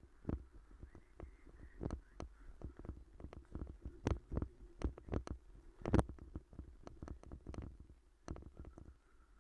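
Bicycle rattling and jolting over a rough dirt-and-stone path: irregular knocks over a low rumble of the tyres, the sharpest jolt about six seconds in.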